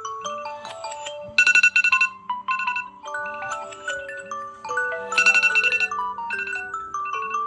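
Smartphone ringtones and alarm tones playing over one another: melodic chime and marimba-like notes in repeating phrases, with louder bursts of bright chime chords about a second and a half in and again about five seconds in.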